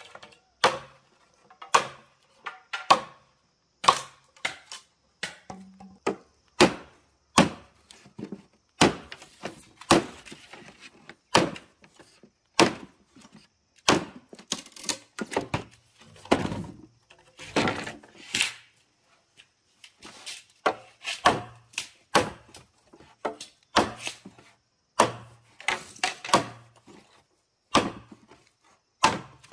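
Chopping: a blade striking again and again in an uneven rhythm, about one to two strokes a second.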